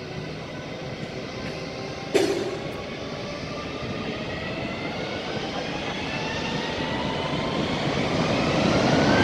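Jet engines of a Brazilian Air Force twin-jet airliner spooling up for takeoff: a whine in several tones rising steadily in pitch and growing louder. A single sharp thump is heard about two seconds in.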